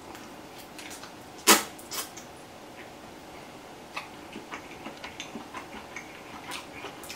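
A mouthful of spaghetti being slurped once, sharply, about a second and a half in, followed by a smaller slurp. After that come soft chewing and lip-smacking clicks and light taps of a fork on the plate.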